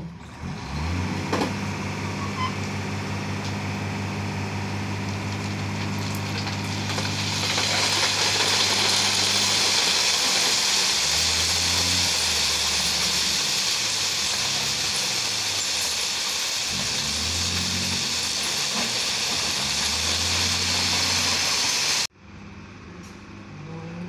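Diesel engine of a road-rail dump truck running, joined from about seven seconds in by a loud steady rush of ballast stones pouring off the tipping bed onto the track. The engine revs up and down several times while the load slides off. Near the end the sound cuts off suddenly to a fainter, distant engine.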